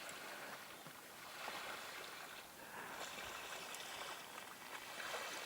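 Water splashing and lapping around a small boat, in soft swells every second or two.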